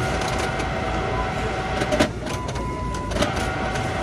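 Checkout-lane store background: a steady electronic tone that steps up in pitch about two seconds in and drops back a second later, over a low hum of the store, with a sharp click about two seconds in and faint handling clicks.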